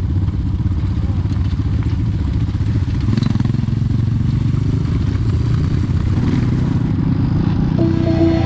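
Motorcycle engine running steadily with a low, pulsing rumble. Music comes in near the end.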